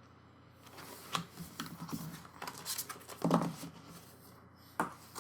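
Rustling with light clicks and taps from photo prints and packaging being handled. There is a louder thump a little over three seconds in and a sharp knock near the end.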